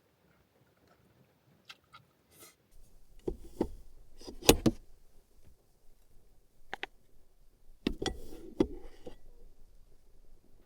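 Tableware clicking and knocking during a meal: several sharp taps, the loudest about four and a half seconds in and another cluster near eight seconds, over a faint low hum that starts about three seconds in.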